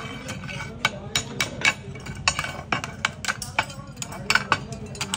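Small hand hammer striking hot metal held in tongs on an anvil: an irregular run of sharp metallic taps, about three a second, over a low steady hum.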